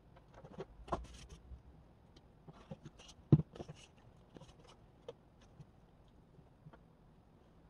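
A sheet of paper is handled and slid across a desktop, making light scrapes and rustles with small taps. One sharper knock comes about three and a half seconds in.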